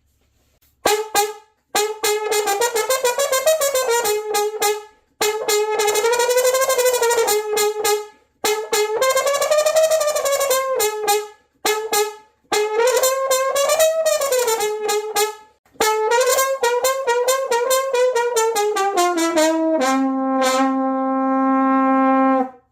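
A JP Solario Zero trumpet played solo, showing off its sound: a short note, then several melodic phrases rising and falling with brief breaths between them, ending on a long held low note.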